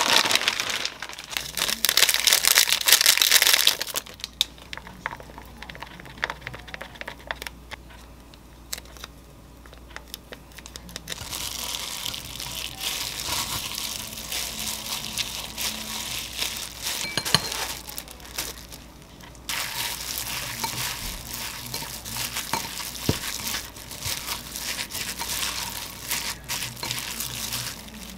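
Food-prep handling sounds. A plastic food package crinkles loudly for the first few seconds as it is tipped over a glass bowl. After quieter clicks, disposable plastic gloves rustle steadily from about eleven seconds in, first as a hand presses water out of tofu in a mesh sieve, and again after a short pause as imitation crab sticks are torn apart by hand.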